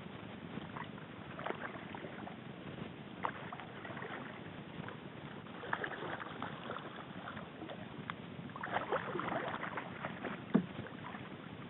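Small waves lapping and splashing against a kayak hull, with irregular little splashes that come thicker around the middle and toward the end, and one sharp knock about ten and a half seconds in.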